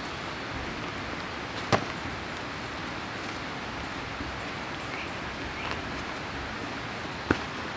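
Paracord being handled and worked around a tree trunk by hand: two sharp clicks, one about two seconds in and one near the end, over a steady outdoor hiss.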